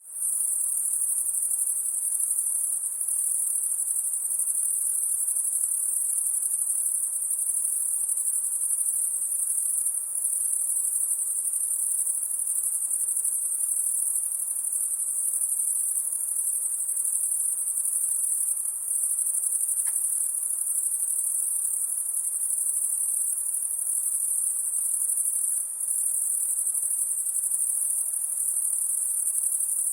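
High-pitched insects calling at night: a dense, continuous shrill chorus that stays very high in pitch and holds steady, with only slight dips in level.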